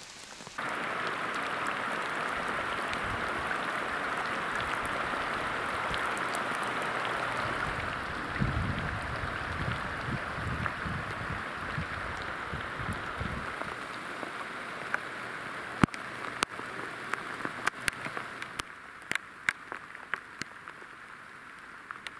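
Heavy rain pouring, heard through a plastic bag covering the camera, with a low rumble in the middle. Later the steady hiss eases and separate drops tap sharply on the bag.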